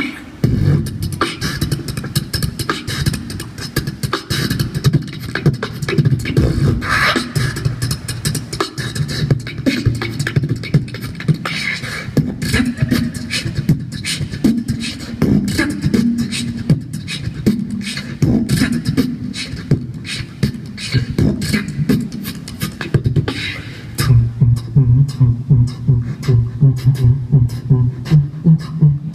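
A male beatboxer performs a battle round into a handheld microphone over a stage PA: fast, dense kick, snare and hi-hat sounds over a heavy bass. Near the end a louder, steadier pulsing bass line takes over.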